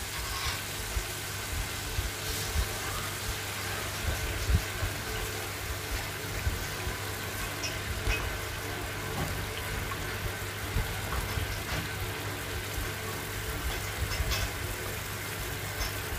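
Marinated chicken pieces frying in hot oil in a kadai: a steady sizzle with scattered small crackles and pops, over a steady low hum.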